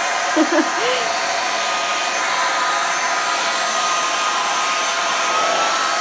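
Arçelik hair dryer running steadily: a constant rush of blown air with a steady high motor whine.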